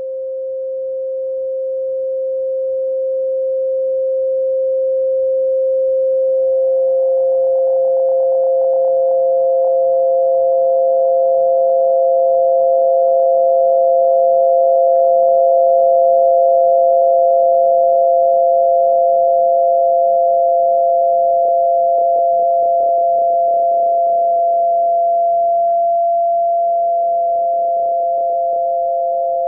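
Electronically generated tinnitus-masking tones: a steady pure tone a little above 500 Hz, fading up at the start, joined about six seconds in by a second, higher steady tone. The lower tone wavers briefly near the end.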